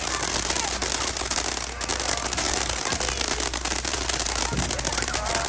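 Fireworks going off without a break: a dense, steady crackling and popping.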